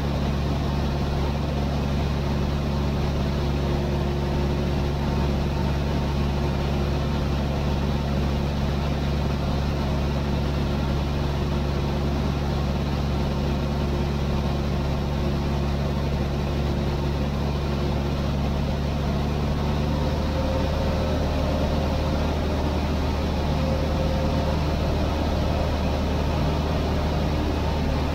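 Cessna 152's four-cylinder Lycoming engine and propeller running steadily in cruise, heard inside the cockpit as a constant drone. Its tone shifts slightly about twenty seconds in.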